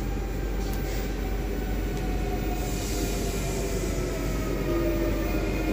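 TER 2N NG double-deck electric train running into the station out of view: a steady rail rumble with a few faint held tones, a little louder near the end.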